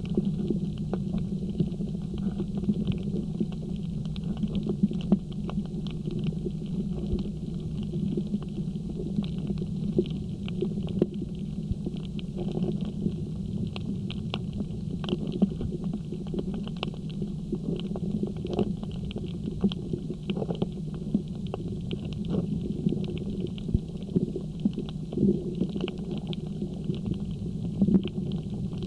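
Underwater ambience on a coral reef, recorded by a submerged camera: a steady muffled low rumble with many irregular sharp clicks and crackles.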